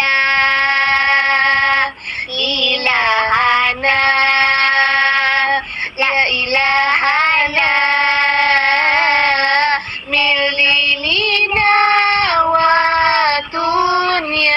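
A high, child-like voice singing a slow melody of long held notes, in phrases a few seconds long with short breaks between them. It is the eerie background song under a horror story's intro.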